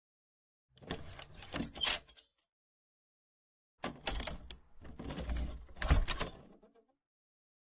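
Wooden door worked twice: a short run of latch clicks and knocks about a second in, then a longer passage a few seconds later that opens with a click and builds to a heavy thump near six seconds, like the door being shut, with dead silence between the two.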